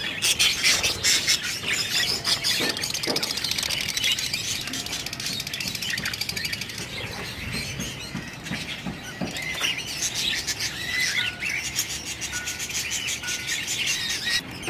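A flock of caged budgerigars chattering and chirping, many birds at once in a dense, continuous, high-pitched warble.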